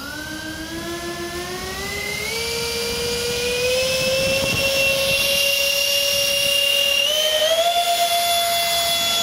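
The engines of a radio-controlled B-2 bomber model whining up to power on a takeoff run. The pitch climbs over the first two seconds or so, holds, then steps up again about seven seconds in and stays high. The model is at full power but does not lift off.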